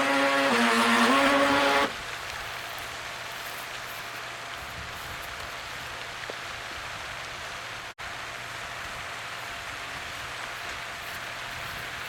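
Twin brushed motors of a stock NQD High Wind toy RC boat whining at full throttle, the pitch stepping up slightly, then cutting off abruptly about two seconds in. After that a steady hiss of water from the pond's fountain, broken by a momentary dropout about two-thirds of the way through.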